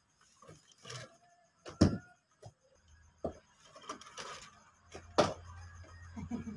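Sharp knocks and clatters from a game of wheelchair cricket: the ball, bat and wheelchairs. The loudest knock comes about two seconds in and another strong one about five seconds in, with a low hum in the second half.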